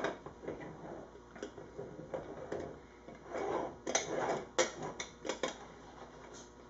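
Aluminium Bialetti moka pot's top chamber being screwed onto its base by hand: irregular short scrapes and clicks of metal on metal as the threads turn, busiest in the middle and latter part.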